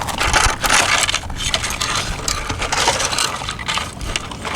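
Small rocks and sand crunching and clattering against plastic toy construction trucks as they are scooped and dumped, a continuous run of gritty scrapes and small clicks.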